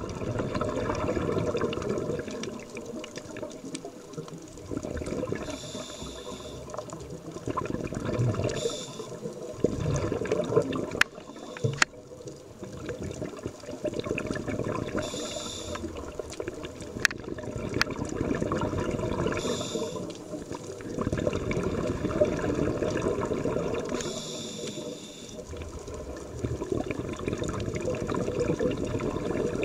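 Underwater scuba breathing through a regulator: a hiss on each inhalation every few seconds, between spells of bubbly rumbling from the exhaled bubbles. A few sharp clicks come in the middle.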